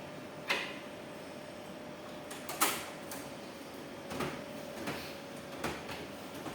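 Clicks and clunks from the cash cassette of a cash recycling machine (CRM) being opened and handled: about five sharp knocks, the loudest about two and a half seconds in, over a faint steady hum.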